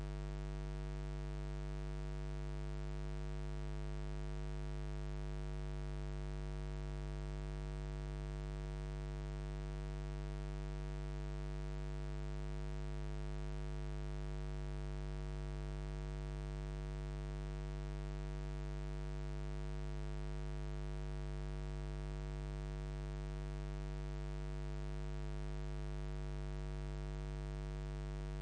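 Steady, unchanging electrical mains hum: a low 50 Hz buzz with an evenly spaced ladder of overtones.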